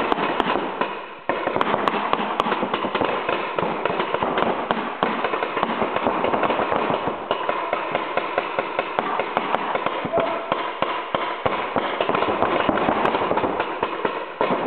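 Reball markers firing rubber balls in a rapid, near-continuous stream of sharp pops and smacks, many shots overlapping, with a brief lull about a second in.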